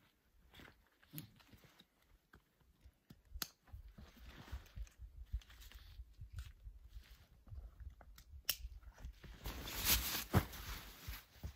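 Fabric rustling and crunching as a stuff sack is packed into a backpack, with scattered small clicks. There is a louder burst of rustling about ten seconds in.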